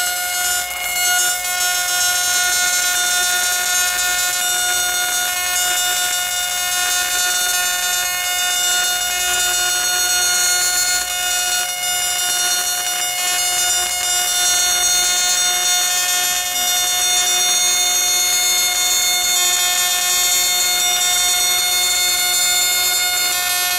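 AC stick-welding arc from a Miller Dynasty 280DX set to 360 Hz, burning a 3/32-inch Böhler Fox EV 50 (E7018) rod: a steady, loud buzz pitched at the 360 Hz AC frequency, with its overtones over a constant arc crackle and hiss.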